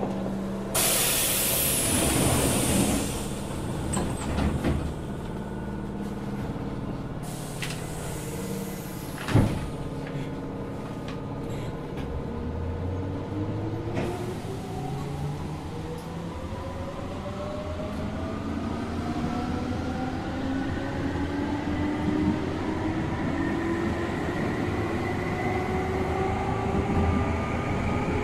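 Keihan 2600 series 0 subseries electric train at a stand: two loud compressed-air hisses, the second ending in a sharp thud about nine seconds in, typical of pneumatic doors shutting. From about twelve seconds the train pulls away, its traction motor and gear whine rising steadily in pitch as it accelerates.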